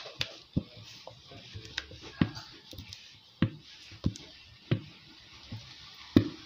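Scattered light clicks and taps, about ten spread irregularly, from the bowl and utensils as thick cake batter is poured from a plastic bowl into a round metal cake pan.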